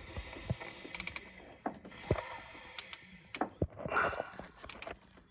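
Irregular metallic clicks and knocks of a hand wrench turning an engine's crankshaft by its bolt, slowly bringing it round against a crankshaft locking pin.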